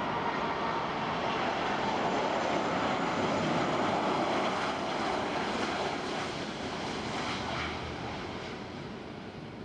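Airbus A330 jet engines on landing approach: a broad, steady roar that is loudest about halfway through and fades over the last few seconds.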